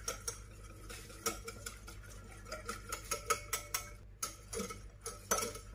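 Wire hand whisk clicking and scraping against a glass mixing bowl as it beats a thick liquid mix of milk, oil and date syrup, with light clicks about four a second.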